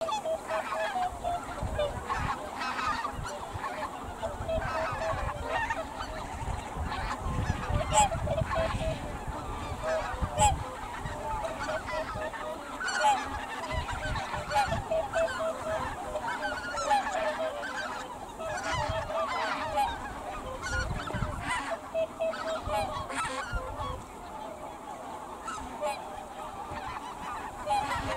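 A flock of snow geese calling, with many short honks overlapping one another throughout.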